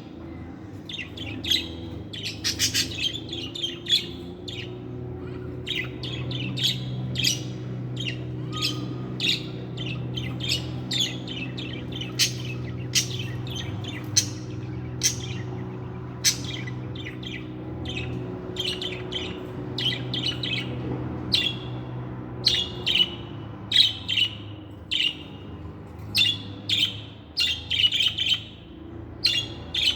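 Budgerigar chirping and warbling in quick, short notes throughout, with a steady low hum underneath.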